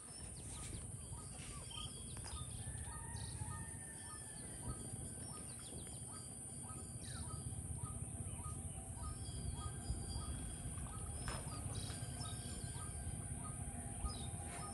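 A bird calling with a short chirp repeated evenly about twice a second for most of the stretch, over a low outdoor rumble and a steady high hiss.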